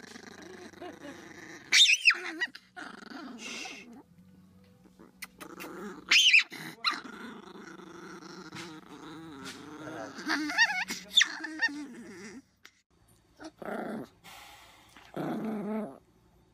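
A Chihuahua growling steadily, breaking into loud high-pitched outbursts about two, six and ten seconds in. After a short gap, shorter growls come in separate bursts near the end.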